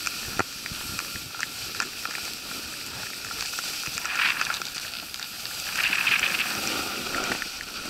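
Snowboard base and edges sliding and scraping over groomed snow: a steady hiss with small ticks, swelling louder about four seconds in and again around six seconds.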